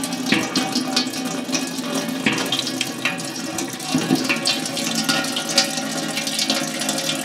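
Coolant draining from the radiator's open drain valve in a steady stream and splashing into a metal container, a continuous trickling splash.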